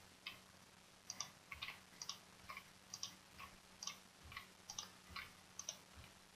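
Faint computer mouse clicks and keyboard keystrokes, mostly in close pairs about once a second, as a period is typed into one form box after another.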